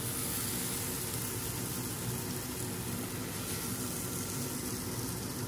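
Steady, even kitchen hiss with a faint low hum underneath, no distinct knocks or scrapes.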